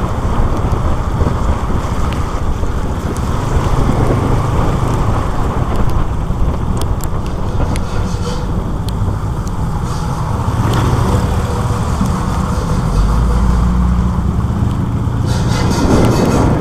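Motorcycle riding along a wet street: the engine runs steadily under a heavy low rumble of wind on the microphone.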